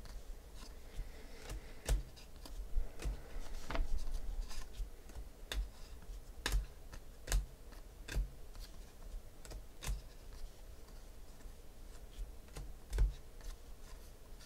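A stack of glossy foil Panini Phoenix football trading cards being thumbed through by hand, one card moved at a time: a sharp click of card stock with each card, at irregular spacing of roughly one a second.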